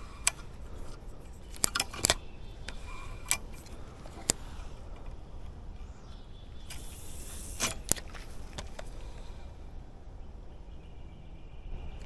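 Spinning rod and reel being handled, with a scatter of sharp clicks. About seven seconds in, a cast sends a short hiss as the line runs off the spool, followed by a couple of clicks.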